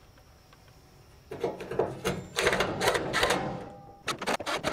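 Clatter and knocking from work on a steel pickup tailgate, followed about four seconds in by a quick run of sharp clicks, several a second.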